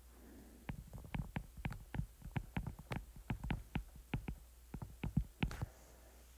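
Pen or stylus tapping and scratching on a tablet screen during handwriting: a run of short irregular clicks, several a second, over a steady low hum.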